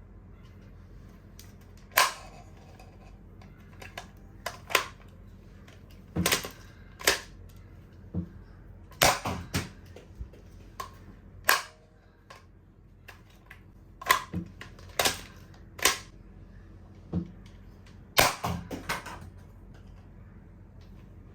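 A series of sharp snaps from a Nerf Rival Fate XXII-100 toy blaster being worked, about fifteen in all at irregular spacing, some coming in quick pairs and a tight cluster near the end.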